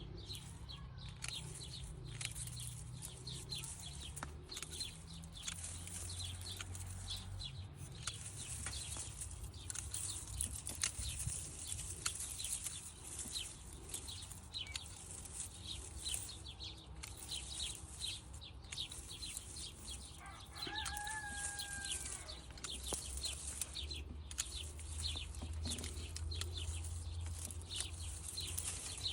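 Outdoor background of birds, with many short high chirps or clicks and one held call lasting about a second and a half, two-thirds of the way through, over a low steady hum.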